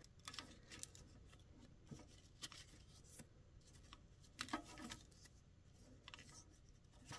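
Faint papery flicks and soft clicks of stiff journaling cards being turned one by one on a Rolodex rotary card file, at irregular intervals, with a slightly louder flick about four and a half seconds in.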